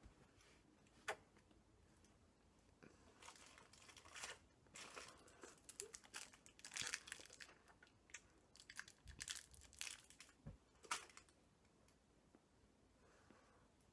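Faint, irregular crunching and crackling with a few sharp clicks, from a sour gum being chewed.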